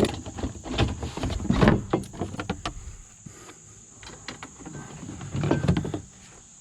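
Hand-tool work on the bolts of a Jeep Wrangler's rear plastic cover: irregular metal clicks and knocks, busiest in the first few seconds and again shortly before the end.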